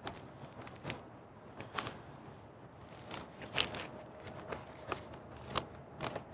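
A stiff black folding bag-liner panel (StreamTrail D55 Inner Wall) being unfolded and flexed by hand, its plastic wrapping crinkling: irregular sharp clicks and crackles, the loudest about halfway through.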